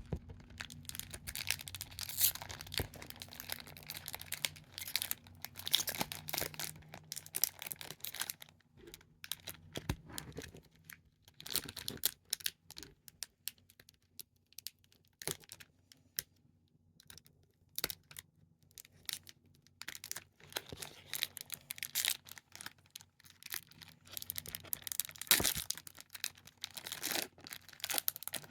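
A trading-card pack wrapper being torn open and crinkled by hand, in irregular bursts of crackling. In the middle there is a quieter spell with only scattered clicks.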